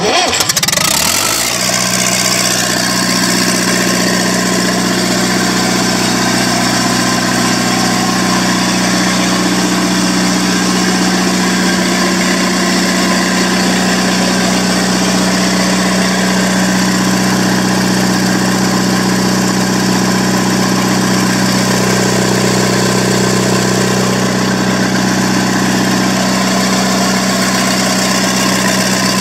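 Perkins 236 four-cylinder diesel engine, started on a stand by jumping its starter, catches at once and settles within about a second and a half into a steady idle.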